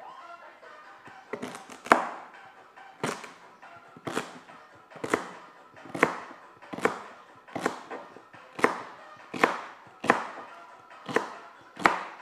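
Kitchen knife chopping through celery stalks onto a cutting board: a steady series of sharp chops, about one a second, starting about a second in.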